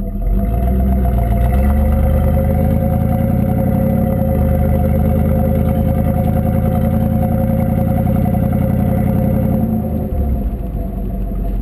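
1985 Pontiac Trans Am's V8 exhaust, heard close up from the moving car, running steadily as it cruises; the engine note eases off slightly about ten seconds in.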